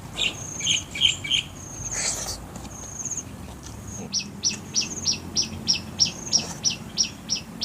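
Outdoor ambience of birds and insects. A short, high insect trill repeats every second or so. A few quick chirps come near the start, then from about halfway a bird calls in a steady series of sharp chirps, about three a second.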